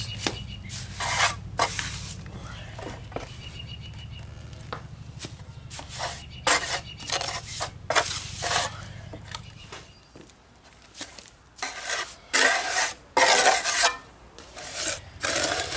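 Steel mason's trowel scraping and slapping stiff Type S mortar onto a concrete step in a run of short strokes, the louder ones near the end. A low steady hum underneath stops about ten seconds in.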